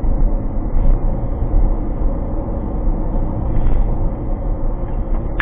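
Steady low rumble of a car driving at speed, with road and engine noise heard inside the cabin through a dashboard camera's microphone. A brief click comes right at the end.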